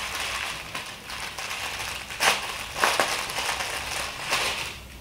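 Clear plastic packaging crinkling and rustling as it is handled and unwrapped, with a few sharper crackles.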